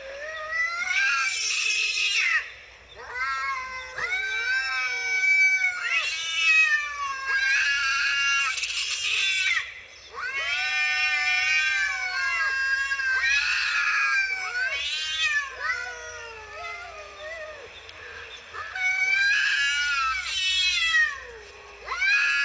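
Domestic cats caterwauling at each other in a face-off: long, wavering yowls that rise and fall in pitch, one after another with only short breaks.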